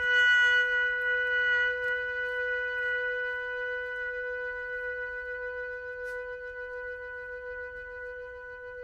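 Music: a single long held note around the B above middle C. It is brightest and loudest for about the first two seconds, then slowly fades, with a slight waver near the end.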